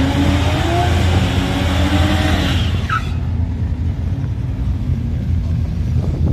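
A car engine accelerating hard, its pitch climbing steadily, until the sound drops away sharply about three seconds in, leaving a lower steady rumble.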